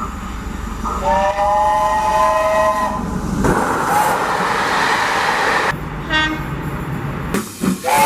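Train horns sounding in short clips cut one after another. A horn holds a chord of several notes for about two seconds, then the rolling noise of the passing train follows. After a cut there is a brief high toot, and another horn blast begins near the end.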